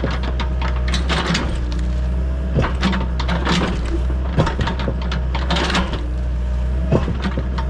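Doosan DX55W wheeled excavator's diesel engine running steadily under load, with irregular knocks, crunches and scrapes as its bucket works against hard, rocky ground it struggles to dig.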